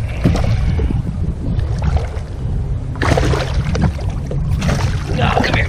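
Wind buffeting the microphone and lake chop slapping against a fishing boat's hull, with louder splashing about three seconds in and again near the end.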